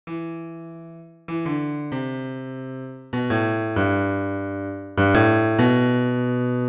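Intro music: a slow series of sustained chords, a new one struck about every second and each ringing out and fading.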